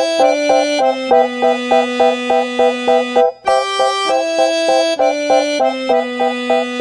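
Instrumental background music: a quick, steady pulse of notes, about four a second, over a bass line that steps down and repeats. The phrase breaks off briefly about halfway through and then starts again.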